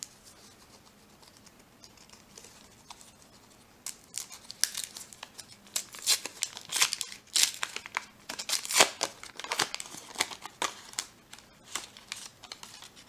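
Foil wrapper of a trading-card pack being torn open and crinkled by hand: after a few quiet seconds, a dense run of sharp crinkles and tearing noises that fades out near the end.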